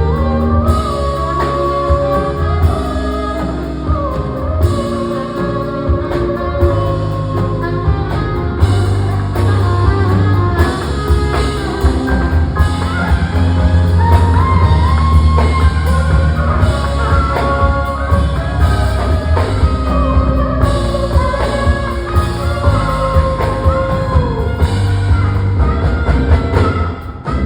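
Live band playing upbeat rock-style music, with a drum kit, a heavy steady bass and guitar under a lead melody line.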